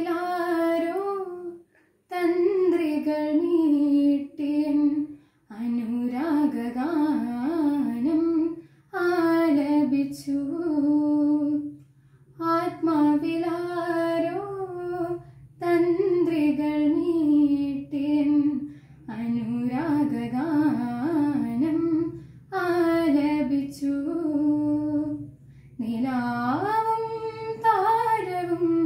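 A teenage girl singing a light-music song solo and unaccompanied, in phrases of two to three seconds with ornamented bends in pitch, each followed by a brief pause for breath.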